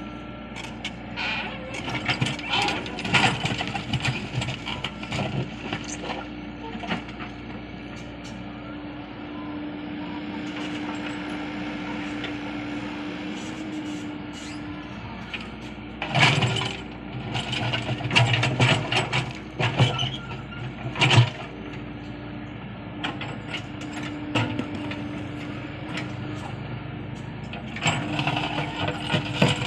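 Komatsu PC75UU excavator working, its diesel engine running under a steady tone, broken by bursts of metallic clanks and knocks. The clanking is heaviest in a run from about sixteen to twenty-one seconds in, and comes again near the start and the end.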